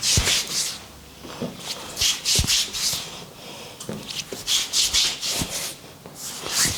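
Hands rubbing and scrubbing through oiled hair and scalp in a head massage: repeated short bursts of hissing friction, with a few soft thuds of the hands on the head.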